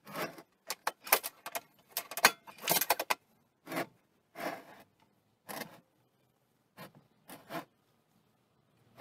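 Honda G35 engine being turned around by hand on concrete: a run of short scrapes and clunks of its metal base on the floor, with light metallic rattles, busiest in the first half and thinning out after about five seconds.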